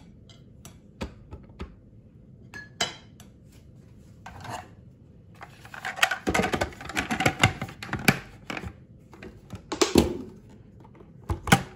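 Clicks, knocks and plastic clatter from handling a food processor's plastic bowl and lid as the lid is fitted. A few light knocks come first, then a busy run of clattering about six seconds in, and sharp knocks near ten seconds and again near the end. The motor is not running.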